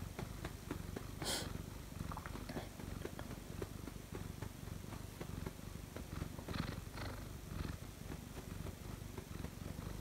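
Siamese cat purring, a steady low rumble, with a brief rustle about a second in.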